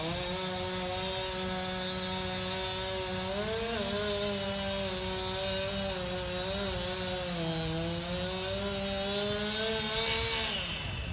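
Chainsaw engine revving up and held at high speed for about ten seconds, its pitch dipping and wavering, then dropping back near the end.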